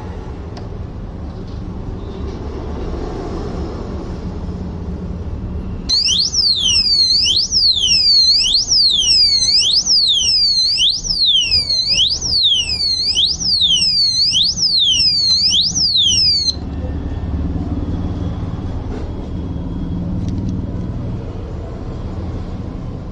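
Disc brake lock alarm sounding a loud siren that sweeps up and down about once a second, starting about six seconds in and cutting off suddenly about ten seconds later. A low background rumble runs before and after it.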